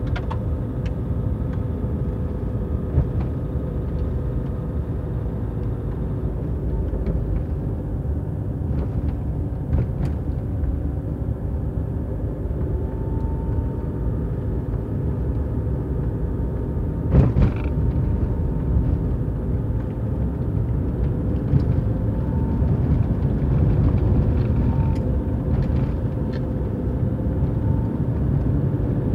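Car driving slowly on a village road: a steady low rumble of engine and tyres with a faint hum that drifts a little in pitch, and one sharp knock about seventeen seconds in.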